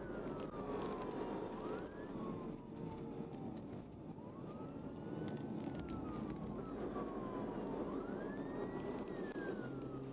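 Police car siren in wail mode, rising and falling in pitch about every three to four seconds, over the steady rumble of a patrol car driving at speed.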